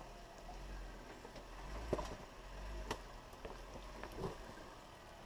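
Jeep Wrangler Rubicon crawling slowly over a rocky trail: a low, steady engine hum under sharp cracks and crunches of rock under the tyres, the loudest about two and three seconds in.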